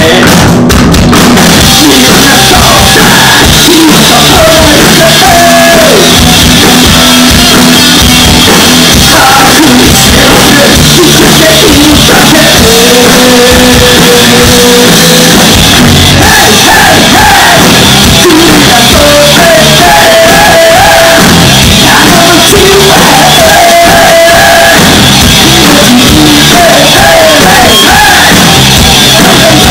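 Live rock band playing loud: a male singer singing and shouting over electric guitars and drums, recorded so close to full level that it sounds overloaded.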